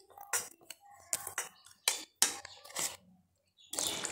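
A metal spoon clinking and scraping against a bowl while stirring a thin flour batter, a series of sharp clinks. Near the end, water is poured into the batter.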